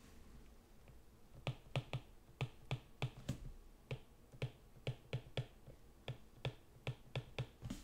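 Pen stylus tapping and clicking on a tablet screen as words are handwritten: a run of short, sharp clicks, about three or four a second, starting about a second and a half in.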